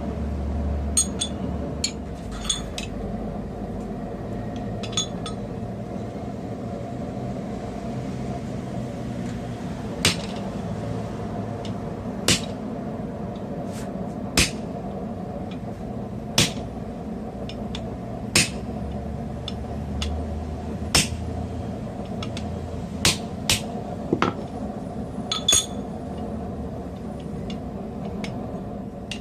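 Hand hammer striking steel on the anvil in a hardy-hole jig, forging a test tong jaw: a few light ringing metal clinks at first, then single sharp blows about every two seconds from about a third of the way in. A steady hum runs underneath.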